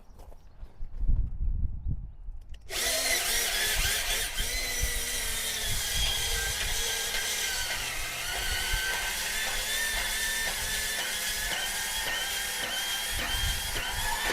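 An electric power tool starts up about three seconds in and runs steadily, cutting through the steel of a 1968 Chevy C10 truck frame to take 8 inches off its back end. Its motor whine wavers a little in pitch as the blade bites into the metal.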